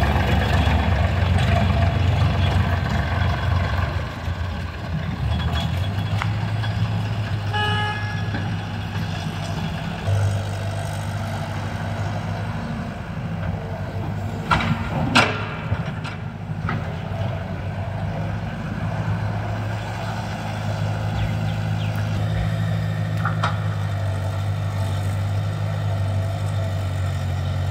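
Diesel engines of a Sonalika DI 50 tractor and a working excavator running steadily. The sound is louder in the first few seconds while the tractor drives up, then settles to a steady idle-level hum. A few sharp knocks come about halfway through.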